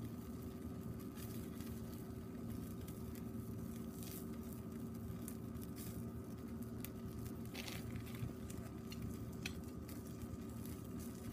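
Meat sizzling on a wire grill over burning charcoal in a water-cooled shichirin, with irregular sharp crackles and pops as fat flares in the flames. A steady low hum runs underneath.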